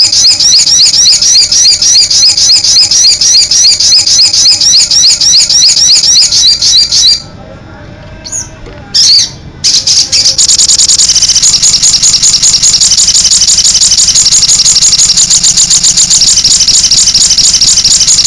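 Sogon bird in loud, vigorous song: a fast run of repeated, sharply rising high notes, a pause of about two seconds, then from about ten seconds in a dense, unbroken high trill.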